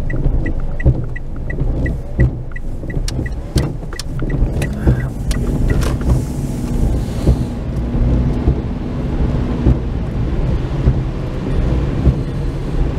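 A car's turn-signal indicator ticking about three times a second over the low rumble of the engine and road; the ticking stops about six seconds in as the car pulls out onto the wet road, and the engine and tyre noise carry on.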